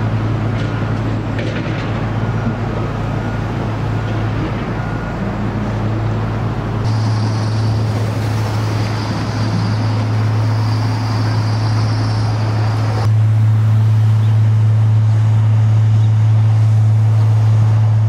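City street traffic: cars and an SUV driving past, engines running under a steady low hum. The sound changes abruptly twice.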